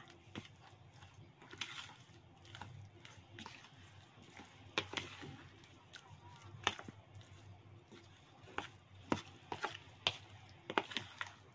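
Metal spoon stirring a thick blended spice paste in a bowl: a soft stirring noise with scattered, irregular clicks and taps of the spoon against the bowl.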